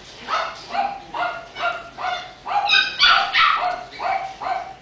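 Six-week-old Morkie puppy giving a quick string of about ten short, high-pitched yips, roughly two a second, while play-biting a hand. The yips are loudest a little past the middle.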